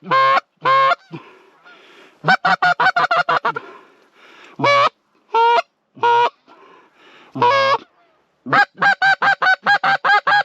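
Goose call blown by a hunter to bring in geese: loud single honks broken by quick runs of clucks, about eight notes a second, twice.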